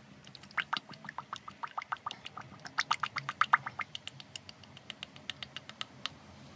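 Engine oil glugging out of a 5-litre can into a funnel: a fast, irregular run of gurgles as air bubbles back into the can. It stops shortly before the end.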